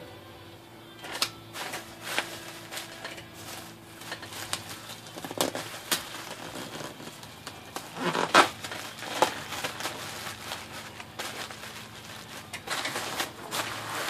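Plastic bubble wrap crinkling and rustling in irregular bursts as it is pulled tight around a typewriter by hand, loudest about eight seconds in and again near the end.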